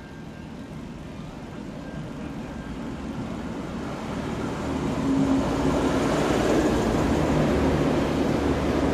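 V/Line VLocity diesel multiple-unit train running into a station platform: its diesel engines and wheels on the rails grow steadily louder over the first five seconds as it nears, then hold loud as the carriages pass close by.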